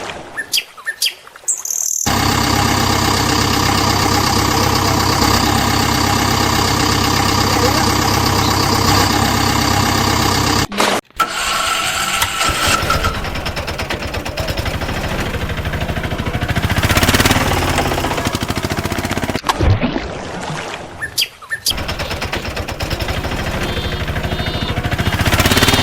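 An engine running steadily, cut abruptly at a few points where clips change, with birds chirping.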